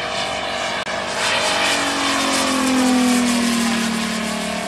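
Large radio-controlled Focke-Wulf Fw 190 scale model flying past, its engine and propeller running with the pitch sliding down as it passes, loudest about three seconds in.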